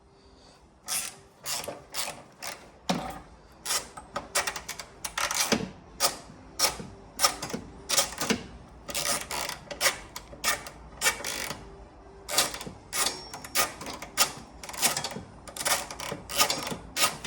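Hand ratchet wrench clicking in repeated short strokes, about two a second, backing out a long bolt that holds a truck's hood latch.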